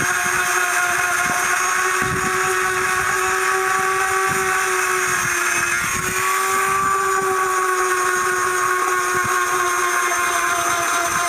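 Small electric power tool motor running steadily with a high whine, abrading a dried sheep pelt. Its pitch dips briefly about six seconds in, as under load, with irregular low scuffing against the hide.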